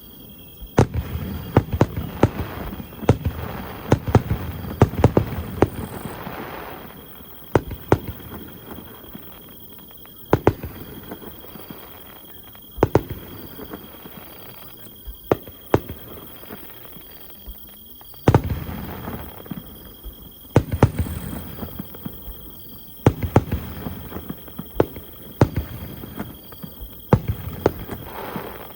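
Aerial fireworks bursting in repeated volleys of sharp bangs and booms, each cluster followed by a rumbling echo, with brief lulls between volleys.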